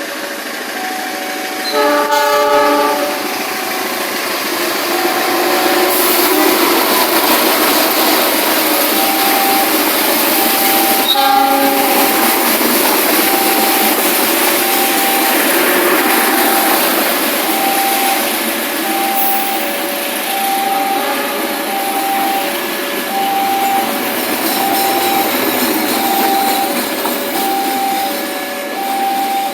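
Passenger train rolling into a station, its wheels and coaches running steadily, with the locomotive's horn sounding briefly about two seconds in and again shortly near the middle. A two-tone electronic warning signal beeps steadily about once a second.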